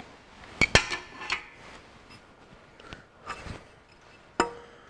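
Metal clinks and knocks as the front crankshaft pulley of a Ferguson 23C diesel engine comes off the crankshaft nose and is handled: two sharp ringing clinks about half a second in, a few lighter knocks, and another sharp clink with a short ring near the end.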